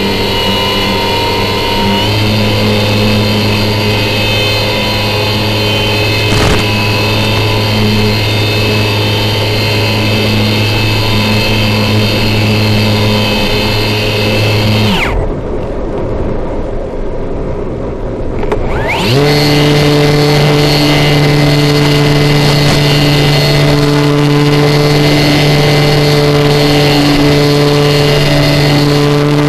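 Electric motor and propeller of an RC flying wing, heard through the onboard FPV camera, running at a steady pitch. About halfway through the throttle is cut and only rushing air is heard for about four seconds, then the motor spools back up and holds a higher steady pitch.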